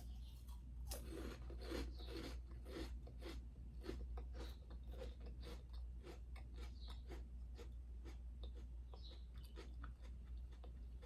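Crisp Thai coconut rolls being bitten and chewed close to the microphone: a run of irregular crunches, strongest about one to three seconds in.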